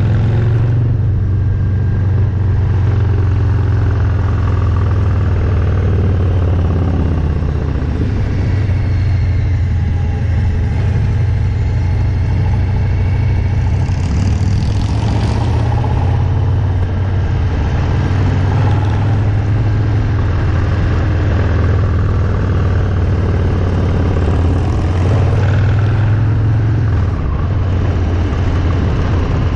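Harley-Davidson Milwaukee-Eight V-twin motorcycle engine running steadily under way, its note rising and falling a little with the throttle.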